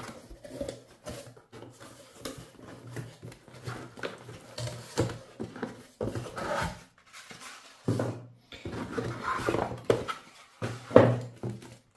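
Cardboard box flaps and a cardboard insert being opened and moved, with molded pulp packing shifted inside: irregular rustling, scraping and small knocks, with several louder scrapes in the second half.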